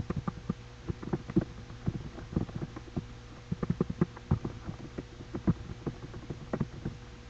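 Computer keyboard being typed on: an irregular run of quick key clicks, over a steady low hum.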